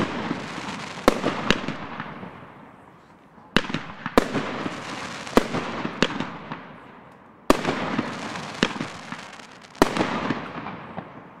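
Blackboxx Virus fireworks battery firing its shots: sharp bangs about every one to two seconds, often in pairs. Each is followed by a hiss with small crackles that fades over a second or two.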